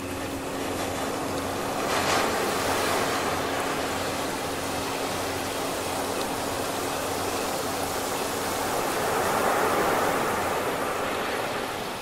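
Ocean surf washing in, swelling about two seconds in and again near the end, over a faint steady low tone.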